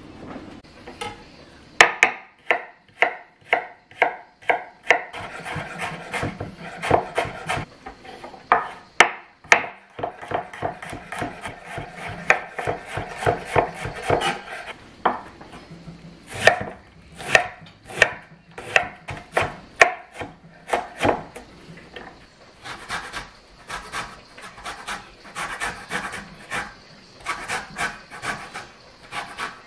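Chef's knife chopping on a wooden cutting board: sharp strikes about two a second at first, then faster, denser runs of cuts. Near the end, an orange rasping back and forth on a microplane zester.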